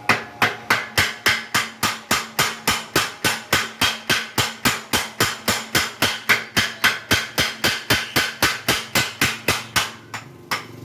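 Blacksmith's mechanical power hammer pounding in a steady rhythm, about four blows a second over a faint steady hum, stopping shortly before the end.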